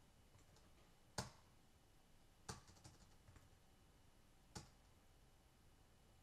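Near-silent room tone broken by a few isolated sharp clicks from working a computer: one about a second in, a small cluster a little later, and one more after that.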